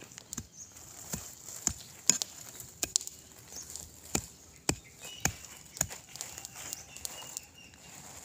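Irregular series of sharp knocks, about one to two a second, from hand work at ground level.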